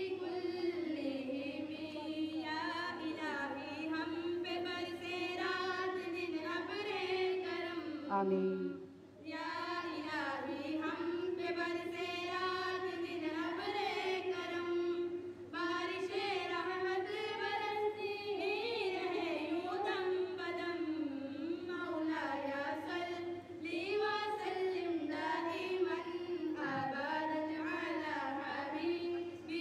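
A voice singing a slow devotional melody with no instruments, holding long, wavering notes, with a short break for breath about eight seconds in.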